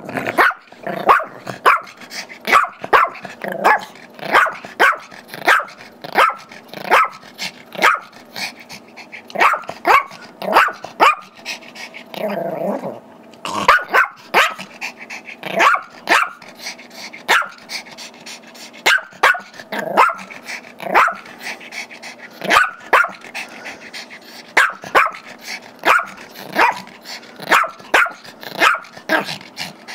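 Chihuahua–Yorkie mix barking over and over in sharp, high barks, about one to two a second, with a short break about halfway through. It is excited play barking: the dog wants the squeaky toy.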